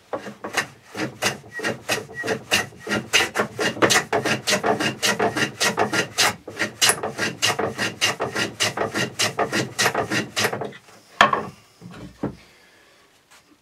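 Veritas custom No. 4 bench plane with a 40° frog and its mouth closed down, shooting the end grain of a rimu board. It goes in quick, regular strokes, several a second, taking very fine shavings, and stops about eleven seconds in with a single knock.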